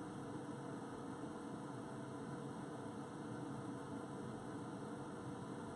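Steady low hum with a faint hiss: room tone with no other event.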